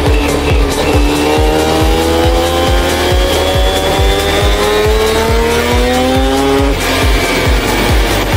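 Mk1 Ford Escort's rotary engine pulling under acceleration. Its pitch rises steadily for about six seconds, then drops away suddenly near the end. It plays over music with a steady drum beat.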